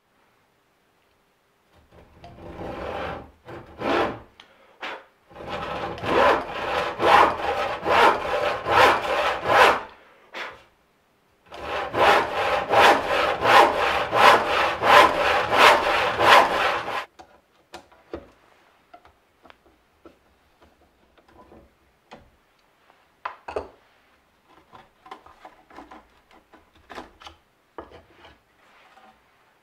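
A cheap handsaw with hardened teeth cutting a softwood board in three runs of quick back-and-forth strokes, with short pauses between them. Near the end the sawing stops, leaving only faint clicks and taps while the handle is taken off the blade.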